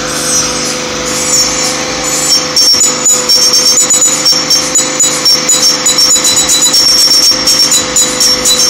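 Carnival ride machinery running with a steady mechanical hum. From a little over two seconds in, a fast pulsing noise of rapid knocks and rattles joins it and grows louder.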